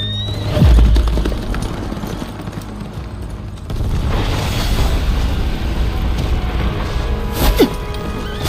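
Dramatic soundtrack music with animated-action sound effects: a deep boom about half a second in, then a rumbling stretch, and a few sharp hits near the end.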